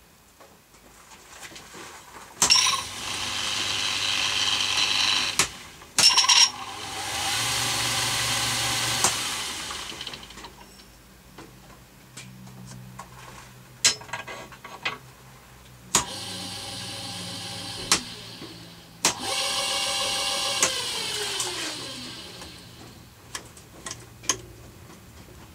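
Homemade belt-driven drill press powered by a two-speed washing-machine motor, started and stopped several times. There are sharp clicks, three loud stretches of the motor and belt drive running, and a steady lower hum in between. Near the end there is a falling whine as the spindle coasts down.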